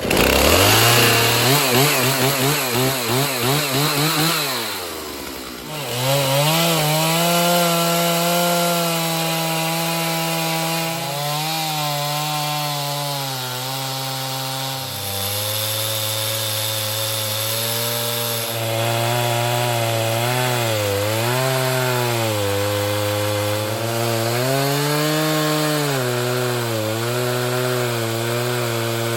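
Chainsaw on an Alaskan chainsaw mill, revving unsteadily as it comes on, dipping about five seconds in, then running under load through a long pine log, its pitch sagging and recovering again and again as the cut goes on.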